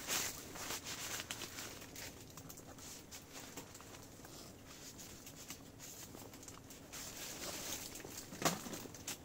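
Rustling of fabric and camping gear being handled, with small irregular clicks and a sharper knock near the end.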